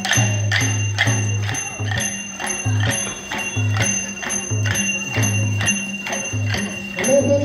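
Traditional Newar dance accompaniment: a hand drum and small cymbals playing a steady beat, a little over two strokes a second, with the cymbals ringing.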